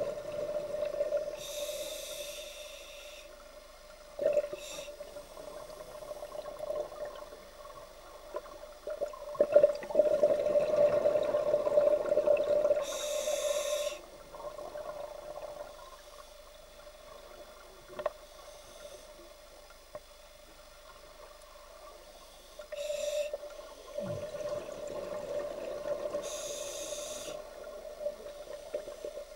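A scuba diver breathing through a regulator underwater: a short hiss from the demand valve on each inhale, then a longer gurgling rush of exhaled bubbles. There are about three or four breaths, and the bubbles are loudest near the middle.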